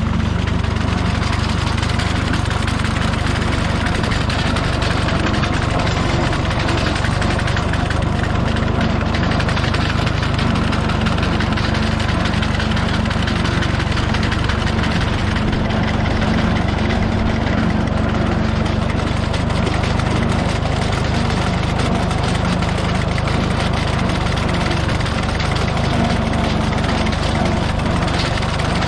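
Tractor engine running at low, steady revs while pulling a Minneapolis Moline sickle bar mower through pasture grass. The revs are kept down to spare the old mower's worn drive belt.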